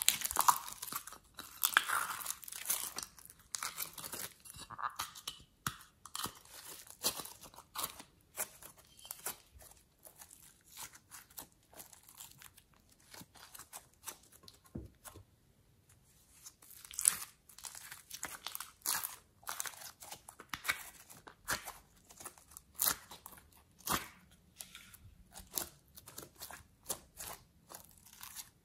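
Hands squeezing, kneading and stretching slime and soft clay, making rapid sticky clicks and crackles. The densest and loudest squelching comes in the first few seconds, as the clay is pressed out of a plastic piping container.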